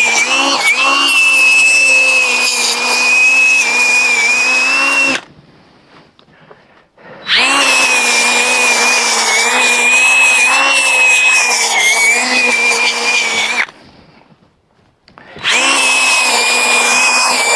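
Frontier OS27 portable band sawmill running with a steady high whine, in three stretches of several seconds that each stop abruptly.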